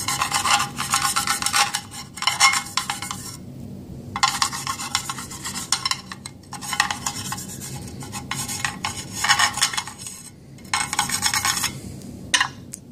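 A wet bristle brush scrubbing the inside of an aluminium AR-15 magazine body: quick back-and-forth rasping strokes in several bouts, with short pauses between them.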